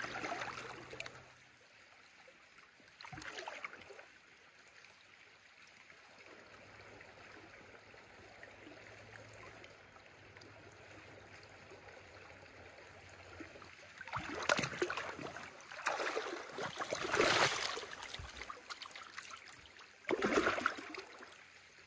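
Shallow river water flowing steadily, with several short bursts of splashing: once about three seconds in, a cluster around fourteen to eighteen seconds in, and once more near the end.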